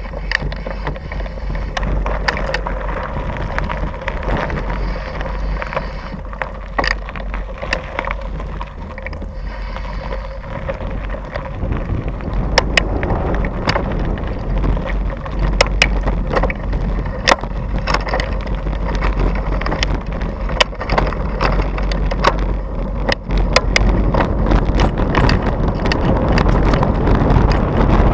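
Mountain bike rolling over gravel and rough tarmac: a steady rumble of tyre noise and wind on the microphone, with frequent sharp clicks and rattles as the bike jolts over bumps. It grows louder toward the end as the bike picks up speed.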